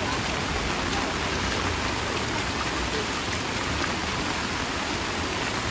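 Heavy rain pouring steadily onto a flooded street, an even, dense hiss.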